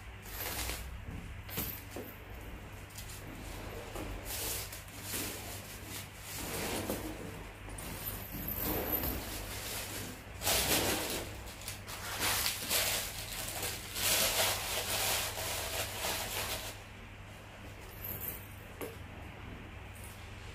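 Paper wrapping rustling and crinkling as it is pulled off and crumpled from a handbag strap, in irregular bursts that are loudest in the middle.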